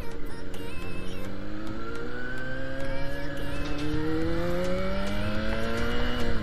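Motorcycle engine pulling under acceleration through a newly fitted replacement silencer, its pitch rising slowly and steadily.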